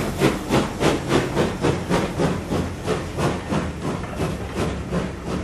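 Steam locomotive, the two-cylinder BR Standard Class 2MT 2-6-0 No 78022, working a train away: steady exhaust chuffs at about three a second, fading slowly as it draws away.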